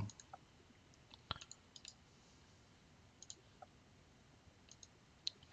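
Faint, scattered clicks of a computer keyboard and mouse, about ten of them spread unevenly, the clearest a little over a second in.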